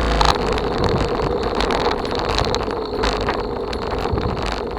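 Bicycle being ridden along a trail: steady tyre and riding noise with wind buffeting the microphone.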